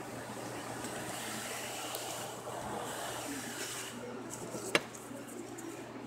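Handling noise from gloved hands moving a plastic washer drain pump and its wires, over a steady low hum, with one sharp click about three-quarters of the way through.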